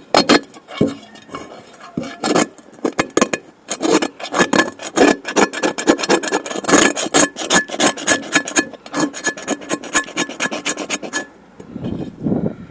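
Rust being scrubbed off a cast iron skillet by hand with an abrasive, in quick, irregular rasping strokes. The scraping stops about eleven seconds in.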